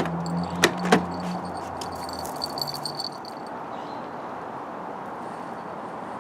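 A car failing to start: two sharp clicks as the key is tried over a low hum, then keys jingling about two seconds in.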